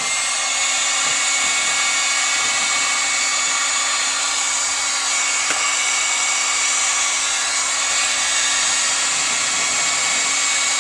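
Electric heat gun running steadily, its fan whine holding one high pitch. It is softening old coating on a steel floor pan so that the coating can be scraped off with a putty knife.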